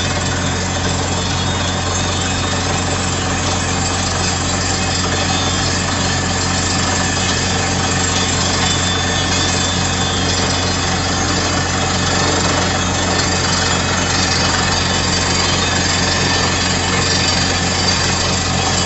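Truck-mounted borehole drilling rig running while it drills: a steady engine drone with a fast, even hammering and hiss from the drill working in the hole.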